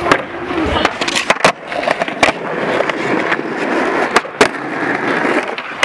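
Skateboard wheels rolling on smooth concrete with a steady rumble, broken by several sharp clacks, the loudest about two seconds and four seconds in.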